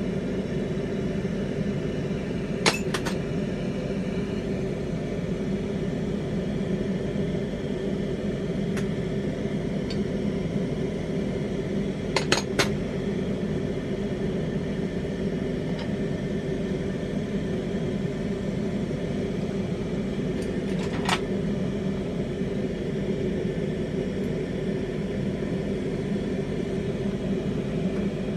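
Steady rumble of a lampworking bench torch burning while borosilicate glass is worked in its flame. Sharp glass clinks of rods or tube knocking together: once a few seconds in, three in quick succession near the middle, and once more about three-quarters through.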